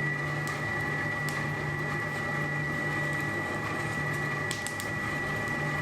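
Forge running steadily while a mild steel bar heats: an even hiss and hum with a thin, steady high whine.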